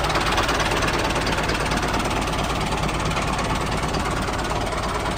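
Tractor engine running steadily, with a fast even pulse.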